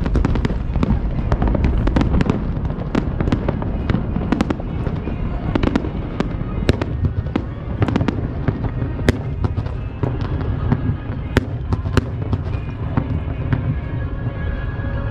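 Fireworks bursting in quick succession: a dense run of bangs and sharp crackles over a continuous low rumble.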